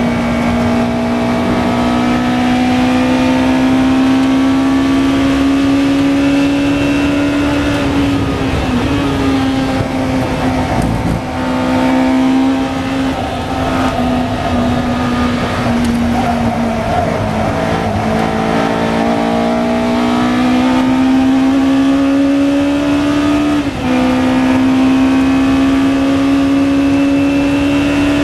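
Lola T292 sports racing car's engine heard from the open cockpit under hard driving, its note rising with speed and stepping down with gear changes. It drops and wavers for a corner about a third of the way in, then climbs steadily to a sharp upshift about five seconds before the end, with wind noise underneath.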